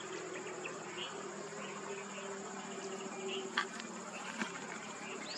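Steady high-pitched drone of insects such as cicadas or crickets, with scattered short chirps. A faint low engine hum fades in the first half as the motor scooter moves away, and two sharp clicks come about two-thirds of the way through.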